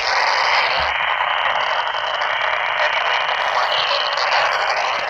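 Weather radio receiver giving a steady hiss of radio static.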